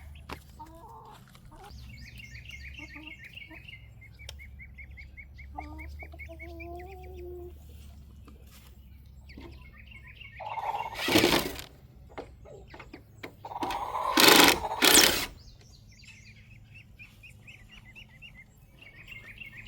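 Chickens clucking with small birds chirping and trilling in the background, broken by two loud, short bursts of noise about halfway through.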